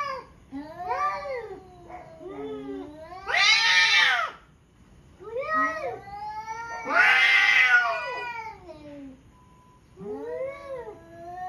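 Domestic cats in a territorial standoff yowling at each other: long wavering caterwauls that rise and fall in pitch, with two louder, rougher yowls about three and a half and seven seconds in, the threat calls that come before a cat fight.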